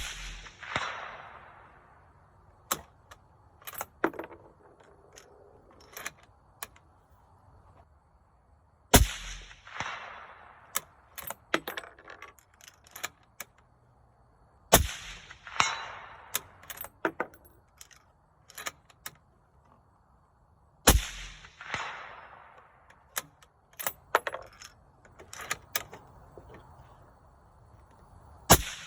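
Five gunshots about six seconds apart, each followed by an echoing tail. Between the shots come clusters of smaller metallic clicks and clinks from handling the gun.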